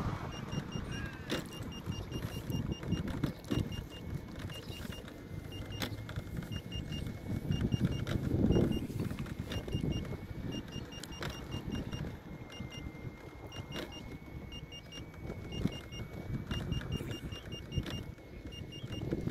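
Riding an electric unicycle: wind rumbling on the microphone, with a thin steady whine from the hub motor. Short high beeps come in irregular clusters throughout, and the rumble swells about halfway through.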